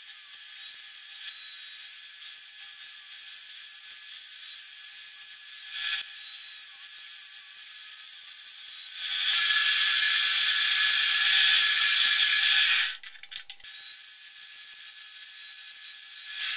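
Angle grinder running with its disc held against a small steel part spinning in a drill press chuck, grinding it down: a steady whine over a high grinding hiss. The grinding gets louder from about nine seconds in, cuts out briefly around thirteen seconds, then carries on at the earlier level.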